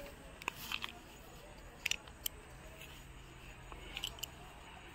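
A metal leash snap hook being unclipped from a dog's collar, with a few faint scattered clicks and rustles over a quiet background. A faint low hum comes in briefly in the middle.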